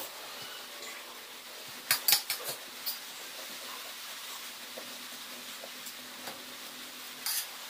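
Metal spoon clinking and scraping against a metal plate while scooping rice: a quick cluster of clinks about two seconds in, another around three seconds, and a couple more near the end.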